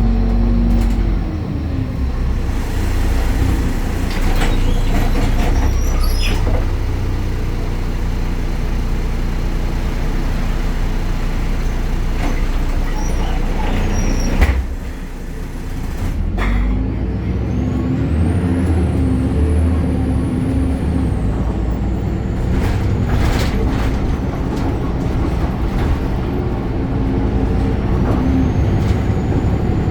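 BredaMenarini Avancity Plus city bus with a Deutz Euro 5 diesel engine and ZF automatic gearbox, heard on board while driving. About halfway through a sharp short sound comes as the engine drops away briefly, then the engine pulls again with rising pitch and a faint high whine that rises and falls.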